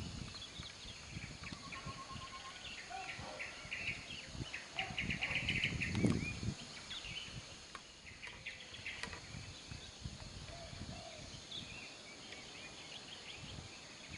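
Low rumbling of a Merapi rockfall, lava and rock tumbling down from the lava dome, swelling about six seconds in and easing off after. Birds chirp over it.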